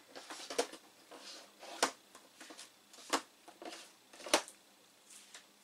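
Someone rummaging through small objects: light rustling with four sharp clicks or taps, about one every second and a quarter.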